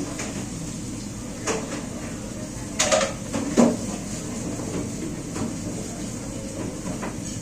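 Dishes and pans knocking and clanking as they are washed, with sharp clanks about a second and a half in and a louder cluster around three seconds, over a steady background hum.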